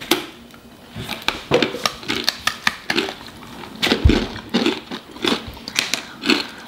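Two people biting and chewing thin, hard cauliflower crisps, giving many sharp, irregular crunches close to the microphone, with a low thump about four seconds in.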